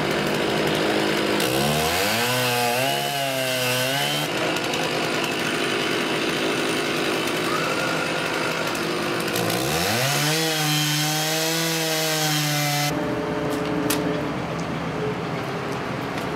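STIHL chainsaw cutting into the base of a large dead white fir trunk. The engine twice drops and revs back up to full speed, running under load in the wood in between, then stops about 13 seconds in, leaving a lower steady hum.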